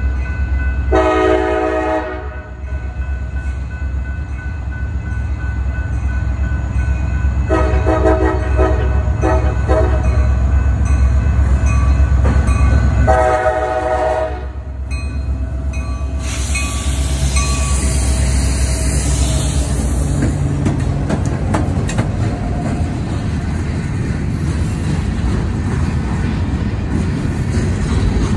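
Freight train's locomotive air horn sounding three blasts at a grade crossing: about a second in, a longer one around the middle, and a third shortly after, over the deep rumble of the diesel locomotives. Then the train rolls past with a steady clatter of freight cars on the rails.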